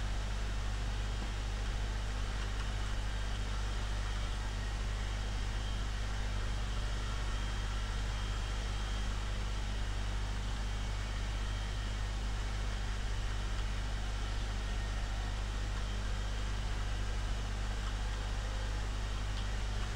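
Steady low hum with an even hiss over it: background room noise, unchanging throughout.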